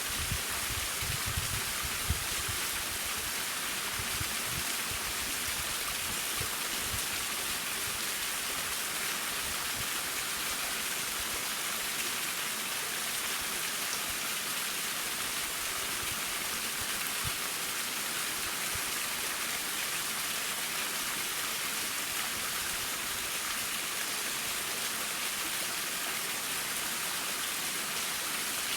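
Waterfall running steadily, an even hiss and splash of falling water. A few low thumps come in the first two seconds.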